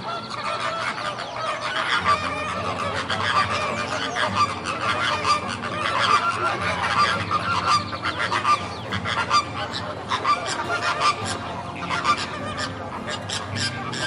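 A flock of American flamingos calling with many short, overlapping goose-like honks.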